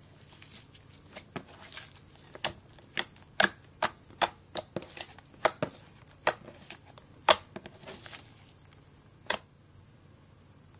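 White fluffy slime being poked and squeezed by fingers, giving off sharp pops and crackles at irregular intervals, a few a second, thinning out with a last pop a little before the end.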